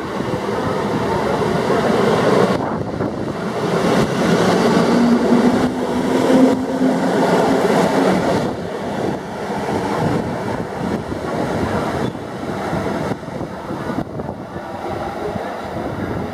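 Modernised EN57AL electric multiple unit pulling out of a station and passing close by. Its traction motors give a low hum that rises slightly in pitch as it accelerates, over the rumble of wheels on the rails. The sound is loudest about five to eight seconds in, then fades as the train draws away.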